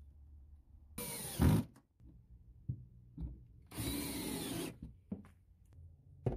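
Ryobi One+ cordless drill driving screws into a metal concealed cabinet hinge in two short runs of under a second each. A loud thump comes near the end of the first run, and small clicks fall between the runs.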